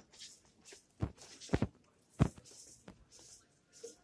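Footsteps on a concrete walkway: a few separate steps about half a second apart, the loudest a little past two seconds in.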